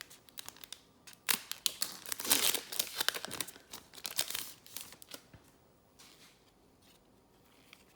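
Foil wrapper of a trading-card pack being torn open and crinkled: a dense crackling tear lasting about three seconds, with lighter clicks of handling before and after.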